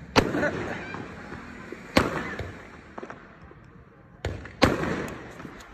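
Firecrackers bursting: four sharp bangs, one right at the start, one about two seconds in and two close together a little after four seconds, each trailing off in an echoing tail.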